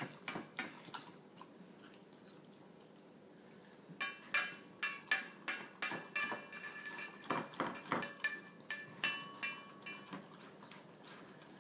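Stainless steel dog bowls clinking and ringing as two dogs eat from them. After a quieter stretch, from about four seconds in, comes a run of sharp metallic clinks, roughly two a second, each leaving a short ring.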